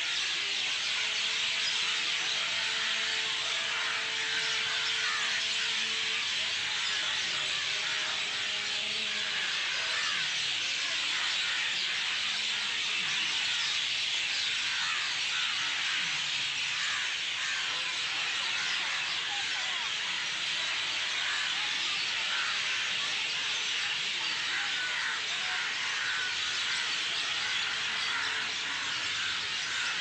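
A large flock of birds gathered in a treetop, all calling at once: a dense, unbroken mass of overlapping chirps.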